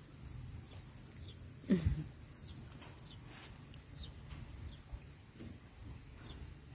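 Faint birds chirping now and then around a rural yard. About two seconds in there is one short, louder voice-like sound that falls in pitch.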